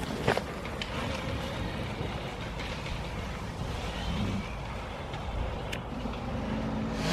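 Two-stroke KTM EXC enduro dirt bike engines running, a low, muffled rumble without clear revving. A few sharp clicks come near the start and one about three-quarters of the way through.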